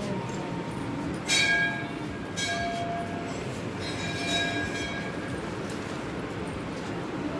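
Temple bells rung by hand: about four metallic strikes in the first half, each ringing on and fading.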